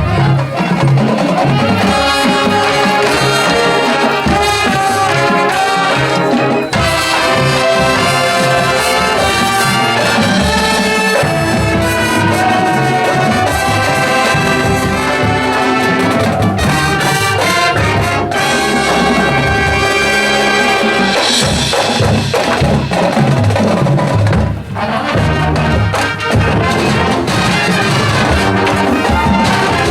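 Marching band's brass section and percussion playing a loud, full passage with a steady beat.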